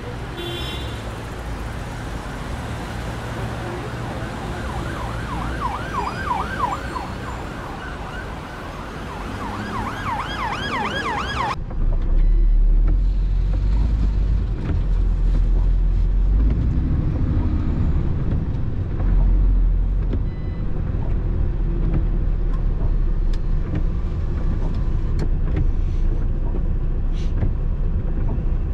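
Busy city street traffic noise with an emergency-vehicle siren wailing rapidly up and down, twice. It cuts off abruptly about 11 seconds in to the steady low drone of a truck's engine heard from inside the cab.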